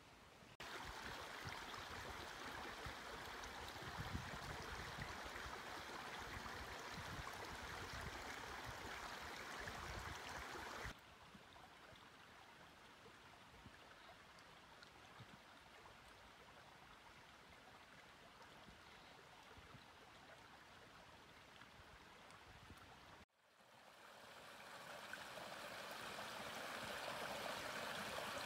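Small snowbound mountain creek running over stones: a steady rush of water that turns quieter about eleven seconds in, cuts out for a moment, then comes back louder near the end.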